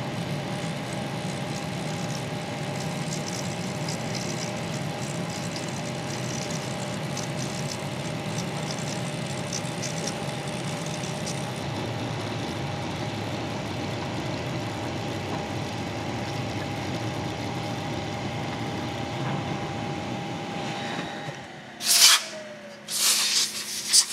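Milling machine spindle running steadily while a 5/8-inch ball end mill cuts a groove in a bronze crank arm, with scratchy crackle from the chips being cut. Near the end the spindle winds down with a falling tone, followed by two or three short, loud blasts of compressed air blowing the brass chips off the part.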